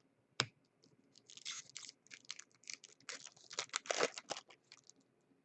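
Foil wrapper of an Upper Deck hockey card pack being torn and crinkled: a sharp click, then a few seconds of dense crackling.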